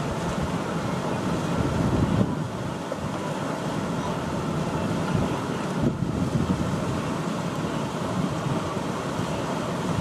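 A large herd of wildebeest splashing across a river: a steady rush of churning water.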